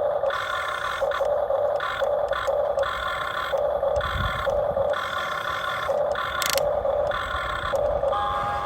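Electric gear motors of a Huina RC toy excavator whirring in short stop-start bursts, each lasting about half a second to a second, as the arm, bucket and turntable are worked. There is a brief sharp tick partway through.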